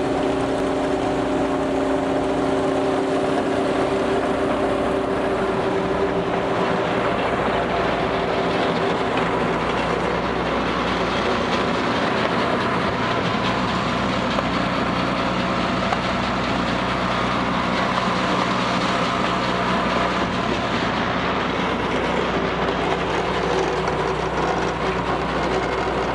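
A volumetric concrete mixer and a concrete pump running together while concrete is fed into the pump: a loud, steady machinery drone with a dense mechanical rumble. The engine hum tones shift about five seconds in and again near the end.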